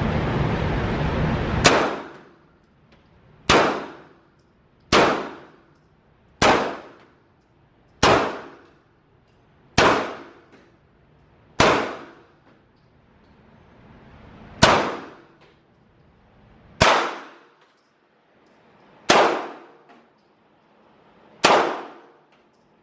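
Eleven pistol shots fired one at a time at an unhurried pace, each a sharp crack with a ringing tail that echoes off the range walls. Before the first shot there is a steady hiss that cuts off as the shooting starts.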